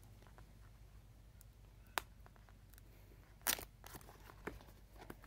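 Cardboard box and paper packaging handled by hand: a single sharp tap about two seconds in, then a short, louder rustle about a second and a half later, with a few faint clicks after it.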